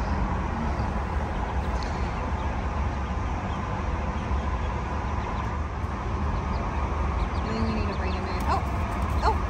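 A few short bird calls from bantam chickens near the end, over a steady low rumbling background noise.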